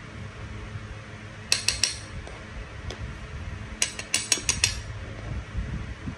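Metal spoon clinking against a granite mortar while knocking shrimp paste off it: three quick taps, then a faster run of about six.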